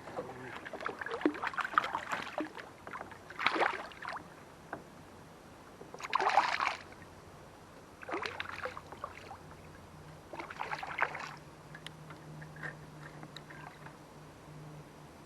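Irregular bursts of water splashing and sloshing beside a kayak while a hooked fish is played and brought in, the loudest splash about six seconds in. A faint low hum joins about ten seconds in.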